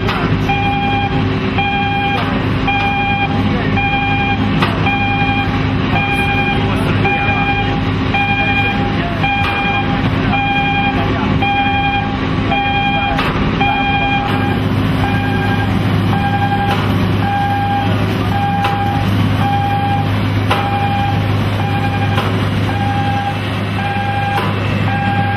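Mobile rubber-tyred yacht gantry crane running, its engine giving a steady low hum that grows stronger about halfway through. Over it, the crane's travel warning alarm beeps over and over in an even rhythm.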